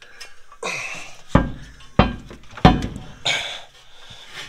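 Metal hitch parts knocked and scraped against a pickup's frame while being fitted under the bed: three sharp clunks about two-thirds of a second apart, with scraping before and after.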